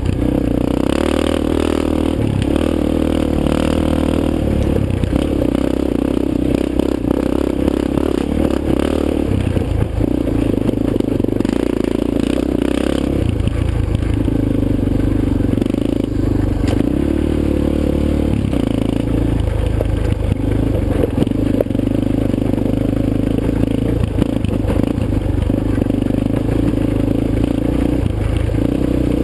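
Yamaha Raptor 250 quad's single-cylinder four-stroke engine running under way on a dirt trail, its note shifting up and down several times with the throttle.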